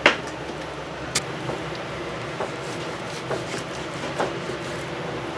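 Kitchen knife cutting through a frozen pork loin and knocking on the cutting board, a sharp knock at the start and lighter ones about once a second after it, over a steady background hum.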